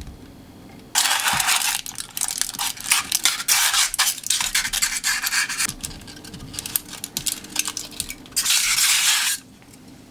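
Aluminium foil wrapper crinkling and butter scraping as a foil-wrapped block of butter is rubbed around the inside of a glazed donabe earthenware pot to grease it. A run of loud rustling scrapes starts about a second in and stops shortly before the end.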